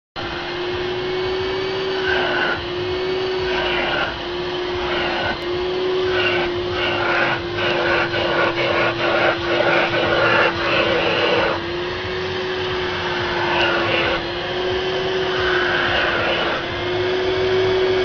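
Kärcher vacuum cleaner running with a steady whine while its nozzle is worked along a car's door trim panel. Over it, a rushing air noise comes and goes in short surges, densest through the middle and easing off toward the end.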